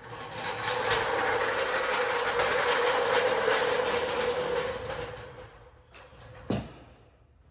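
A small mechanism whirring with a steady hum for about five seconds, then fading away, with a sharp click near the end.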